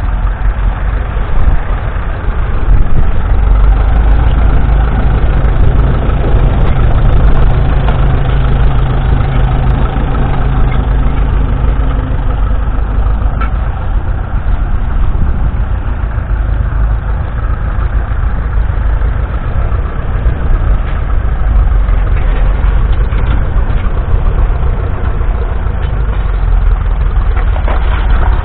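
A 1951 Ferguson TED20 tractor's 2.1-litre four-cylinder TVO engine running steadily with a low, even note. The note is heavier for roughly the first ten seconds and then eases a little.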